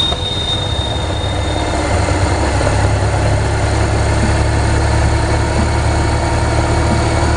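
BMW R1200GS boxer-twin motorcycle engine running steadily at road speed, a low even drone. A thin, high steady tone sounds over it for the first couple of seconds and fades out.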